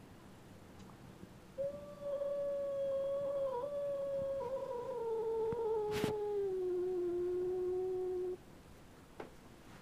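House cat giving one long, low yowl of about seven seconds, its pitch sagging slowly toward the end: a territorial warning at a strange cat outside the door. A sharp click sounds partway through.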